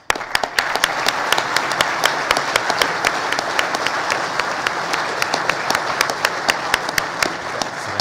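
A large audience applauding: dense, steady clapping from many hands that starts suddenly.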